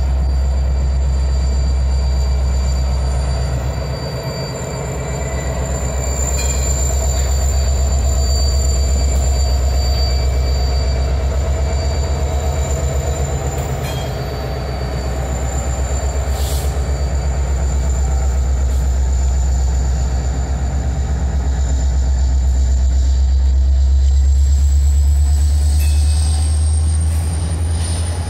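Norfolk Southern diesel-electric freight locomotives rolling slowly past at close range, their engines running with a deep, steady rumble. A thin high whine runs underneath and rises in pitch near the end, and there are a few brief metallic clanks.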